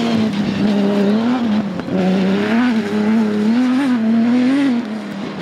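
Warrior off-road racing buggy's engine running hard, its note rising and falling with the throttle. It breaks briefly about two seconds in and drops away near the end.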